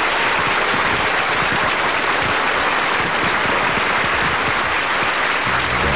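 A steady, dense hiss of noise.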